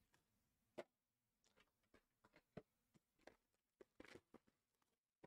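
Near silence broken by faint scattered taps and rustles of cardboard trading-card boxes being handled, about a dozen soft clicks with a slightly longer rustle around four seconds in.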